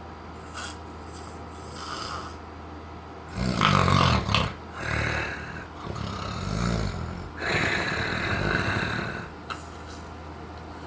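A person snoring: a run of rough snores starting about three seconds in and lasting some six seconds, over a steady low hum.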